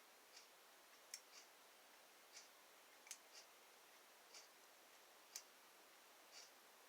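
Near silence with faint, regular ticking about once a second and a few sharper, louder clicks in between.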